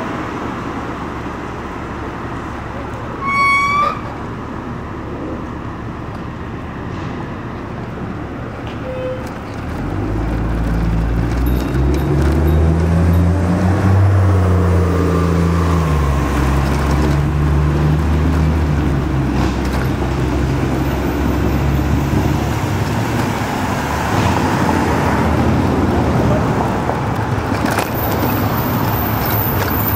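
Road traffic noise from vehicles passing close. A brief high-pitched toot comes a few seconds in. From about a third of the way through, a vehicle engine's low drone grows louder and rises and falls in pitch for some ten seconds.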